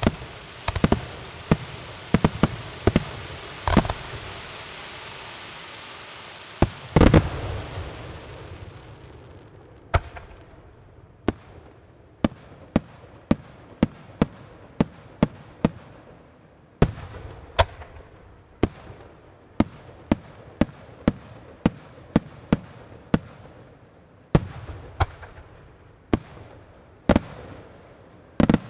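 Aerial firework shells bursting in quick succession, with a steady hiss between the bangs and the loudest salvo about seven seconds in. From about ten seconds in, single shell bursts follow roughly one a second.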